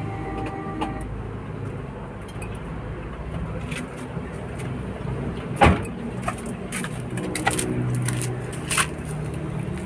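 Honda Fit running with a steady low hum, and a single sharp clunk a little past halfway, followed by a few lighter knocks. This is the clunk the car makes when shifted into drive or reverse.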